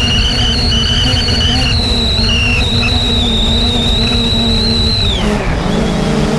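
3DR Solo quadcopter's electric motors and propellers whining steadily, with a low rush of wind and air noise; about five seconds in the whine drops in pitch as the motors slow, then carries on at a lower speed.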